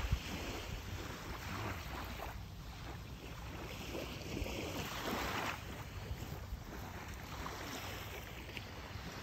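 Small, calm waves washing and lapping on a sandy shore, swelling a few times, with wind rumbling on the microphone throughout. A brief knock right at the start.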